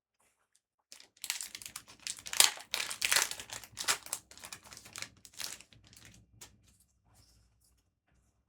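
Foil wrapper of a trading-card booster pack crinkling and tearing as it is opened by hand. A dense run of crackles starts about a second in, is loudest in the middle and fades out after about six seconds.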